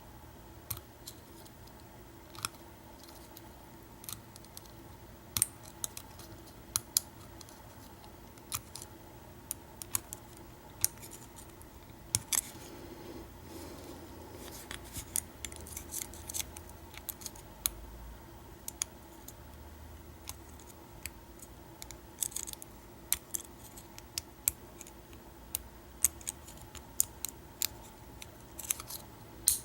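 Lock pick and tension wrench working the pins of a vintage American 700 padlock: small, irregular metallic clicks and ticks as the pins are lifted, set and dropped.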